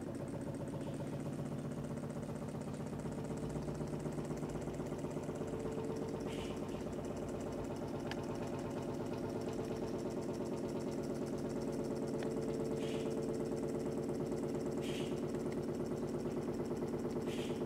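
Homemade tin-can Stirling engine running steadily, its nail flywheel spinning on a bent-wire crank and balloon diaphragm working, giving a fast, even mechanical rhythm. It grows a little louder about twelve seconds in.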